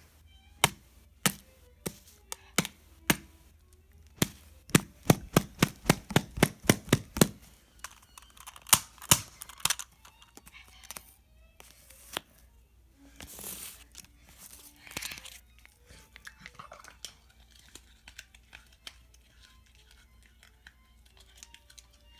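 Sharp clicks and snaps, coming in quick succession for a few seconds, then bursts of tearing and crinkling, as when a foil card pack is ripped open.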